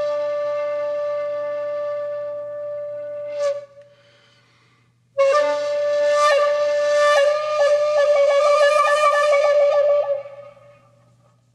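Solo flute-like wind instrument playing slow, long-held notes as background music. The first note fades out about three and a half seconds in; after a short pause a new phrase begins, steps up in pitch twice, then wavers before fading near the end.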